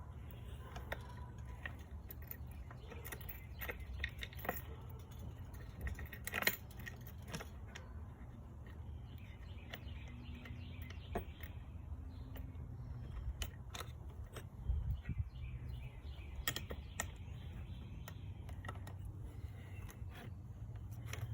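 Small metal parts and hand tools clinking and tapping in irregular handling noises while an angle grinder bench stand is put back together, over a steady low hum.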